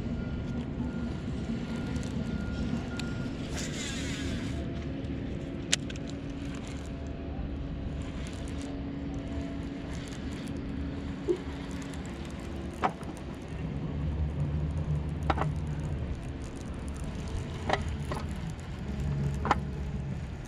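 A steady low mechanical hum, like a small motor running, with a few sharp clicks spread through it and a brief hiss about four seconds in.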